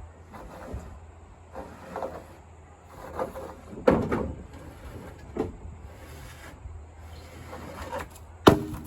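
Irregular wooden knocks and clunks, a dozen or so at uneven gaps, with the sharpest knock near the end: 2x4 boards being shifted and handled.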